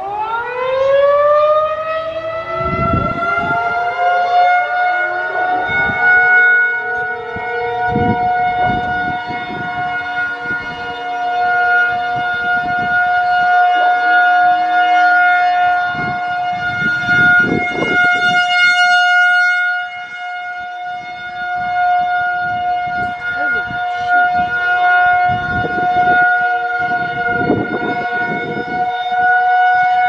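Federal Signal 2001-130 rotating outdoor warning siren starting up: its pitch climbs steeply in the first second to a steady alert tone, which swells and fades as the horn turns, with a marked dip about twenty seconds in. A few seconds in, two more distant Federal Signal 508-128 sirens wind up underneath on lower tones, and wind gusts buffet the microphone.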